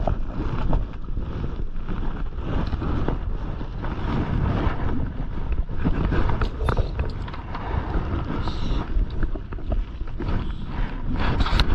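Strong wind buffeting the microphone in loud, irregular gusts, with water splashing against the side of a small open boat.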